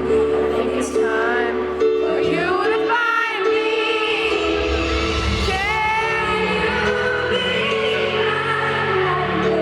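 Live pop ballad: a woman's lead voice singing gliding, bending phrases over held accompaniment chords and bass.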